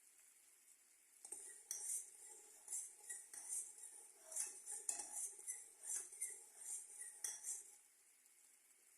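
A metal spoon stirring and scraping against a pot of boiling sugar syrup, about two strokes a second. It starts about a second in and stops near the end.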